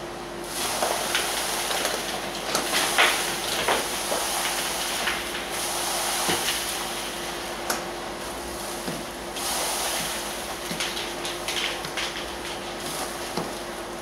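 A push broom sweeps sawdust and wood shavings across a concrete floor into the open end of a workshop dust-extraction hose running through a cyclone separator. The hose sucks them in with a hiss and a crackle of chips, in three long spells. The extractor runs with a steady hum throughout.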